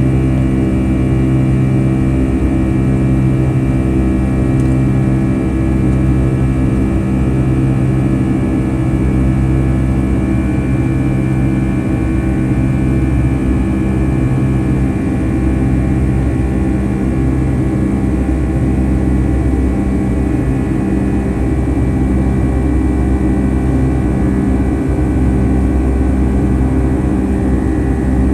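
Boeing 757-200's twin jet engines running steadily, heard from inside the passenger cabin, with a slow regular pulsing as the two engines beat against each other.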